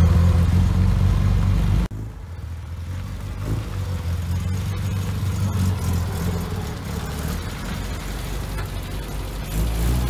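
The BMC A-series four-cylinder engine of a Classic Mini van runs as the van drives slowly around a dirt yard. The engine sound drops abruptly about two seconds in, then grows louder again near the end as the van comes toward the microphone.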